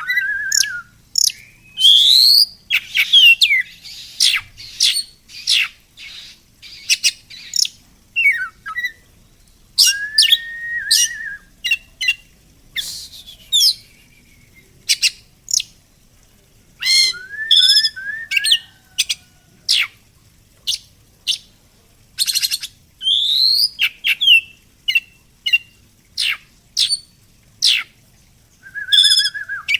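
Songbirds chirping and singing: a busy string of short, sharp chirps and quick whistled sweeps, broken now and then by a few lower, arched notes repeated in short runs.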